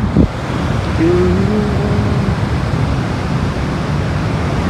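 Fast mountain stream rushing over rocks, a steady wash of water noise. A short thump comes just at the start, and a person's voice is heard briefly about a second in.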